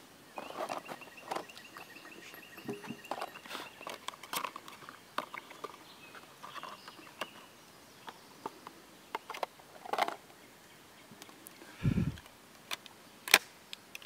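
Handling sounds of a CBC 20-gauge break-action single-shot shotgun being loaded: scattered light clicks and taps as a shell is taken from its box and put into the chamber, then a dull thump and a sharp click near the end as the action is closed.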